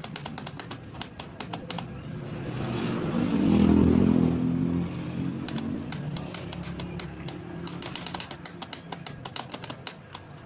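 An engine swells in loudness, peaks about four seconds in, falls back and runs on steadily, amid many sharp clicks.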